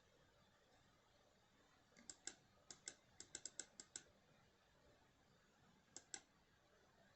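Light clicks in quick pairs over near silence: a cluster of about a dozen between two and four seconds in, then one more pair about six seconds in.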